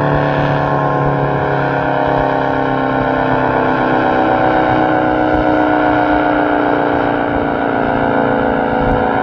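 ACA Penetrator-50 tornado siren sounding its steady alert signal: a loud, sustained two-tone chord from its 50 hp motor and 8/12-port chopper, the pitch easing down slightly.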